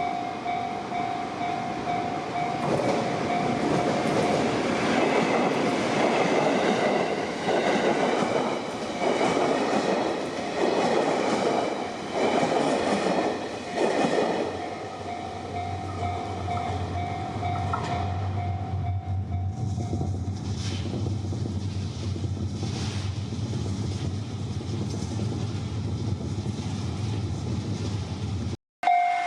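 Level-crossing warning bell ringing as a train passes over the crossing, its wheels clattering over the rail joints in a regular rhythm. The train clears after about fifteen seconds, and the bell stops a few seconds later, leaving a low steady hum.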